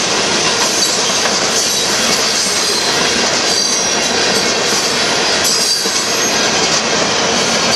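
Union Pacific mixed freight train rolling past close by: a loud, steady rumble and rattle of boxcar wheels on the rails, with faint high wheel squeal.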